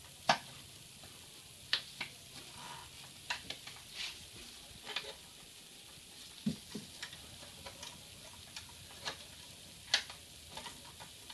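Gloved hands fitting a new fuel filter in its rubber collar into its engine-bay bracket: irregular light clicks and taps of handling, the sharpest about a third of a second in and near the end.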